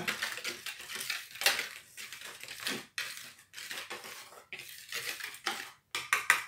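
Wire whisk stirring dry flour mix in a plastic bowl: irregular scraping strokes against the bowl, with a few sharper taps near the end.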